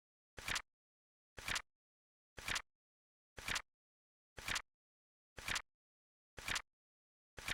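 Flip clock sound effect ticking: a short, sharp click about once a second, evenly spaced, with complete silence between the clicks.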